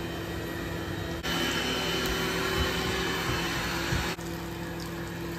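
Hot oil sizzling steadily as battered pieces deep-fry in a cast-iron skillet, with a low steady hum beneath. The sizzle is louder and brighter from about one to four seconds in.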